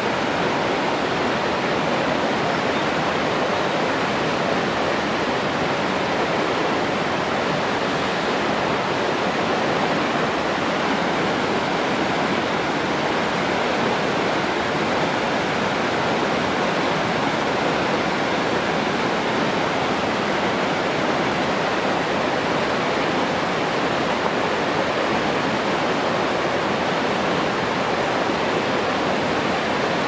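Fast mountain stream rushing over rocks in white-water rapids: a steady, even rush with no breaks.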